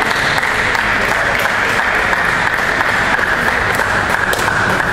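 Steady applause and clapping from spectators and teammates, greeting a won table tennis match.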